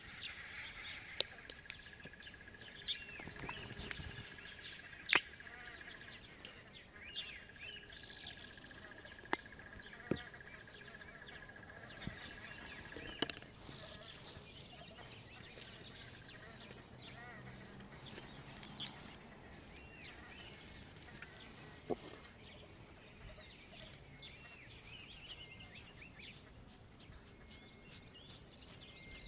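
Quiet outdoor ambience with scattered bird chirps, a steady high-pitched tone through roughly the first half, and a few isolated sharp clicks or taps.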